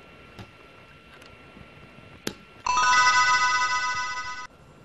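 Faint clicks of a cable connector being fitted, then an electronic chime: a rising major-chord arpeggio of pure tones that is held for about two seconds and cuts off suddenly.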